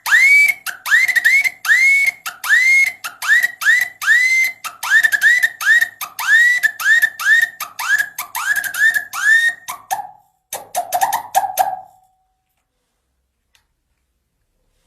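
Basuri-style modified vehicle horn sounding a rapid string of short rising whoops, about two a second, over a faint steady lower tone. About ten seconds in it changes to a few lower blips, then stops, leaving near silence for the last few seconds.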